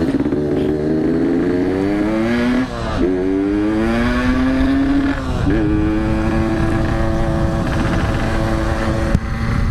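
Yamaha RX-King's two-stroke single-cylinder engine pulling away: its pitch climbs, drops sharply at an upshift about three seconds in, climbs again, drops at a second upshift past the halfway point, then holds steady at cruising speed.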